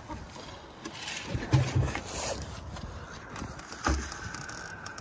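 Gusty wind buffeting the microphone, with low rumbling thumps about one and a half seconds in and again near four seconds.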